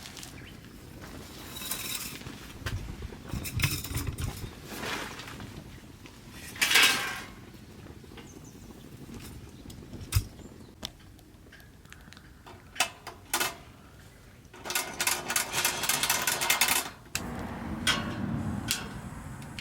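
Camp gear being handled: scattered clinks, knocks and clatter like metal cookware and utensils, with a longer scratchy rustle about fifteen seconds in.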